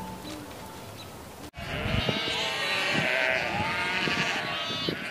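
A large flock of sheep bleating: many overlapping calls at once. It starts abruptly about a second and a half in, after a moment of faint music.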